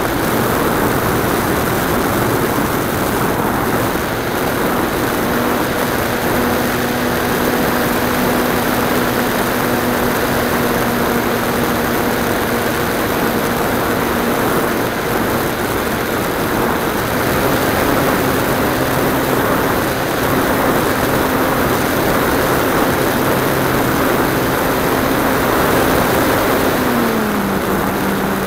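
Model airplane engine and propeller heard from on board in flight: a steady drone under loud wind rush. The pitch steps up slightly about halfway through and drops near the end.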